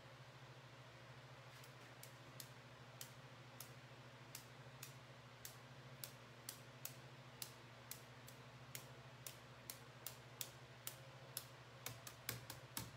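Faint, evenly spaced light ticks, about two a second and quickening near the end, as a paint-loaded marbling brush is tapped to spatter drops of paint onto the size for a stone pattern.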